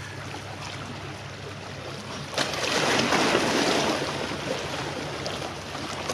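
Small waves washing and lapping at the water's edge, with one louder surge of water about two and a half seconds in that lasts over a second and fades, over a faint low hum.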